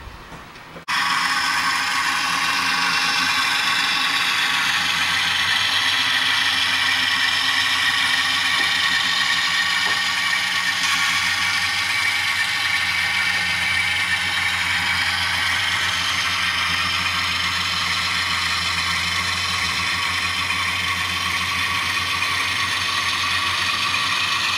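HO scale model diesel locomotives running past on the track, their motors and gears giving a steady mechanical whir. The whir starts suddenly about a second in.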